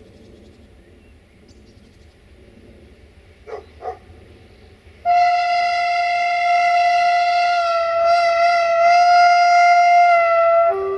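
Horn of an approaching 060-DA diesel-electric locomotive: one long, steady note of about six seconds, starting about five seconds in and dropping to a lower note right at the end. Before it, a dog barks twice.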